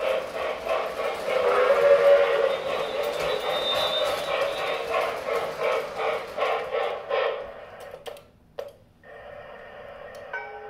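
MTH RailKing O-gauge New York Central J3a Hudson model steam locomotive and passenger cars running on three-rail track, with a rhythmic clatter of wheels over the rail joints and switches. The clatter falls away about eight seconds in, leaving a quieter steady running sound.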